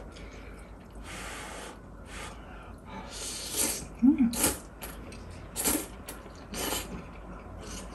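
Noodles being slurped from a bowl of spicy noodle soup: about five quick slurps in a row, with soft mouth noises between them.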